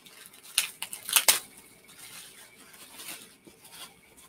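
Packaging being handled while a parcel is unpacked: sharp crinkling and rustling, loudest in a few strokes around the first second, then softer rustling.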